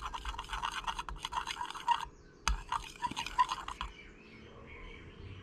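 Metal spoon stirring and scraping against the sides of a glass measuring cup, mixing drops of black colorant into liquid plastisol: quick repeated scrapes with clinks, a short pause with one sharp clink, another spell of stirring, then it stops about four seconds in.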